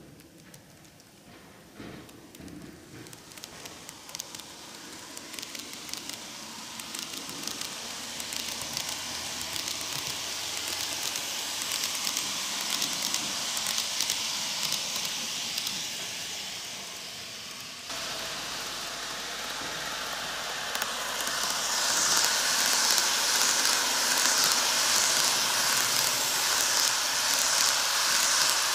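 N-scale model electric trains (Tokyu 5000 series and 2020 series) running on model track, their wheels and motors making a fine rattling, clicking rolling noise. The noise builds as the trains speed up and come past close by, then steps up suddenly about two-thirds of the way through.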